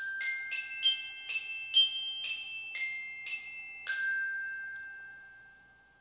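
Short chiming intro jingle on a glockenspiel-like mallet instrument: about ten bright, bell-like notes struck roughly two a second, the last one ringing on and fading away.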